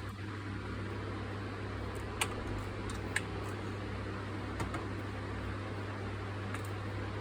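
Steady hum of a room fan, with three single sharp clicks about two, three and four and a half seconds in.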